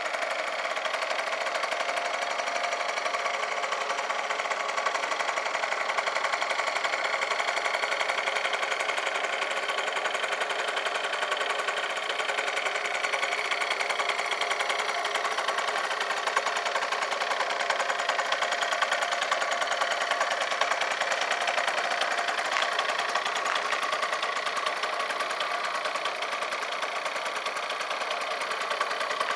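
2000 Yamaha Vino scooter's small two-stroke single-cylinder engine idling steadily.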